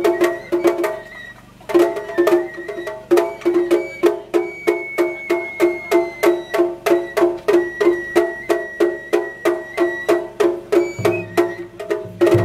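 Japanese festival music (matsuri-bayashi): drums struck in a fast, even beat, with a high bamboo-flute line held and stepping in pitch above it. The beat pauses briefly just over a second in, then carries on.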